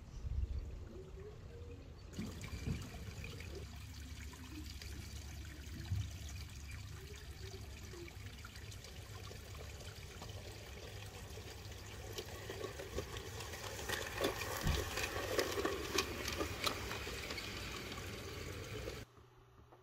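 G-scale garden-railway model steam loco and its wagons running along the track: a steady hiss that grows louder as the train approaches, with many sharp clicks as it passes close by, then cuts off just before the end.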